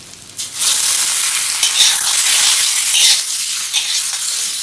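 Raw chicken pieces dropped into hot oil and garlic in a wok start sizzling loudly about half a second in. A metal spatula scrapes and stirs through the sizzle.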